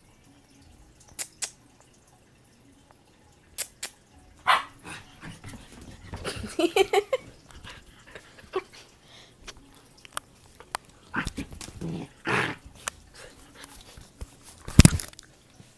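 A puppy barking and yipping in excited, rough play, in a few short bouts, among scattered taps and knocks; a sharp knock near the end is the loudest sound.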